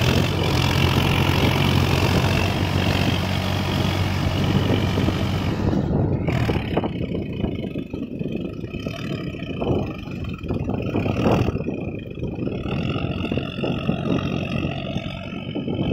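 Solis tractor's diesel engine running under load as it drags a leveler through a flooded paddy field on cage wheels. The engine is loud and close for about six seconds, then quieter and more distant.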